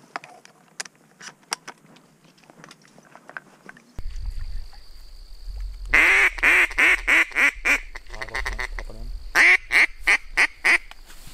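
Faint rustling and clicks, then, from about four seconds in, a low wind rumble. Over it come two runs of loud mallard-style quacks, about four a second: the first a couple of seconds after the rumble starts, the second near the end.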